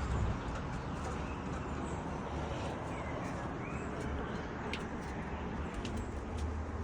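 Domestic pigeons cooing over a steady background hiss and rumble, with two faint short chirps about three seconds in and a few light clicks near the end.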